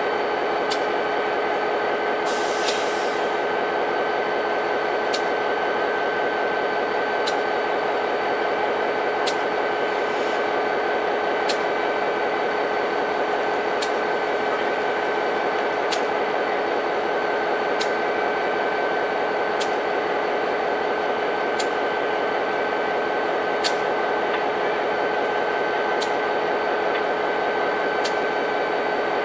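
EMD 645E diesel engine of a GP40PH-2B locomotive idling at a standstill: a steady drone with a held hum. A short hiss of air comes about two and a half seconds in, and a sharp tick repeats about every two seconds.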